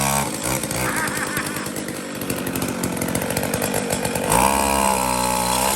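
Small gasoline engine running just after being pull-started: a rev falls away at the start, it idles unevenly, then it is revved up again about four seconds in and held for over a second.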